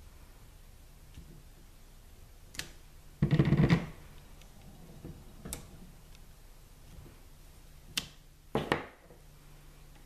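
A photopolymer stamp being inked on an ink pad and pressed onto paper on a table: scattered clicks and knocks, with a louder run of quick taps about three seconds in and another cluster near nine seconds.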